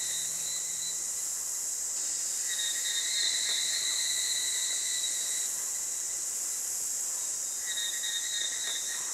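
Forest insect chorus: a steady high-pitched hiss, with a shrill insect trill that comes in twice, the first time for about three seconds and then again briefly near the end.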